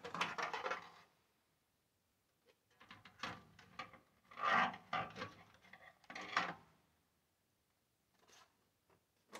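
Tin-can pipe collar scraping and rubbing against the stovepipe as it is slid and twisted into place, in four short bouts with pauses between.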